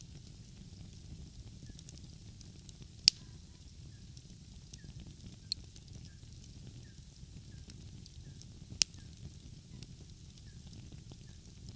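Wood fire crackling: a steady low rumble and hiss of the flames, broken by three sharp pops, the loudest about three seconds in and again near nine seconds.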